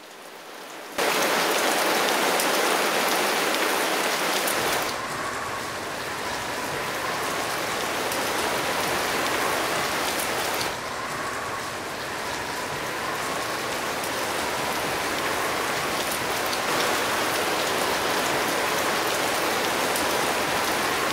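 Heavy rain falling steadily, starting suddenly about a second in.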